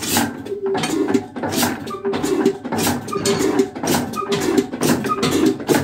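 Old slow-running stationary diesel 'black engine' (kala engine) chugging with an even beat of exhaust knocks about twice a second.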